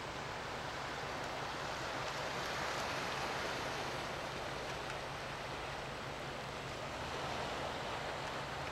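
Sea waves washing against a rocky shore: a steady rush of surf that swells a little about two seconds in and again near the end.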